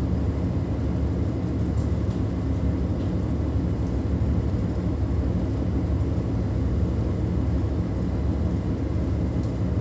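Tugboat diesel engines running steadily: a low rumble with an even hum, heard from inside the wheelhouse.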